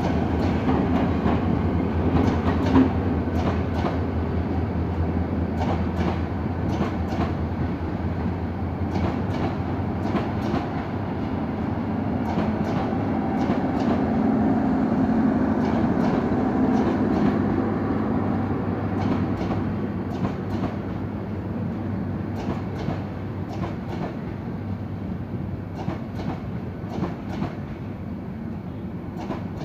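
Bangladesh Railway intercity passenger coaches rolling past on the adjacent track, their wheels clicking over the rail joints above a steady rumble. The sound grows quieter in the second half as the train slows into the station.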